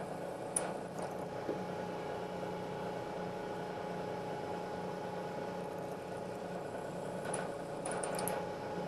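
Milling machine spindle running steadily, turning a drill in its quill while drilling 2024 aluminum dry. There are a few faint ticks shortly after the start and again near the end.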